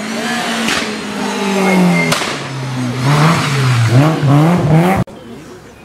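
Rally car engine revving hard through a bend, its pitch climbing and dropping several times with gear changes and throttle lifts, with two sharp cracks in the first two seconds. The sound cuts off suddenly about five seconds in.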